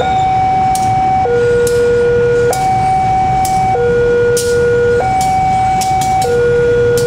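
Railroad crossing warning alarm sounding its two-tone signal, alternating steadily between a high and a low tone every second and a quarter. Under it is the low rumble of a KAI CC201 diesel locomotive crossing, with scattered sharp knocks.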